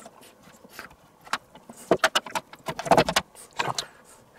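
A run of short metallic clicks and clinks, starting about a second and a half in: a rotisserie spit rod and its prong forks being handled against a stainless steel roasting tray.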